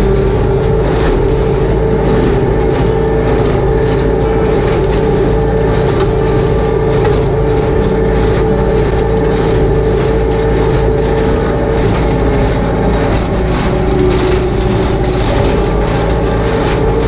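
Tractor engine running steadily under load with the rhythmic mechanical clatter of hay equipment working behind it.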